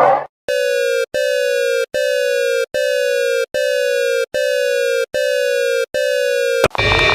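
Emergency alert tone: eight buzzy electronic beeps in steady succession, each about three-quarters of a second long and sliding slightly down in pitch. A different alarm sound cuts in near the end.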